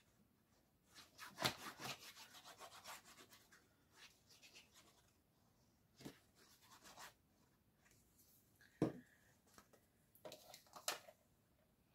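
Paper and cardstock being handled and rubbed against a craft work surface: a run of quick rubbing strokes about a second in, then a few light taps and knocks, the sharpest about two-thirds through.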